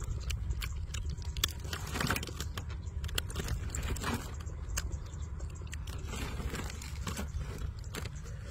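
Close-up eating sounds: chewing of crispy fried food and many small crisp crackles as a whole fried chicken is torn apart by hand, over a steady low rumble.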